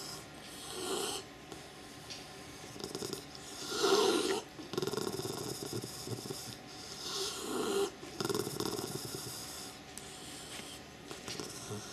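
Xoloitzcuintli dog grumbling with raspy, snorting growls in several swells, the loudest about four seconds in: she is annoyed at being disturbed while resting.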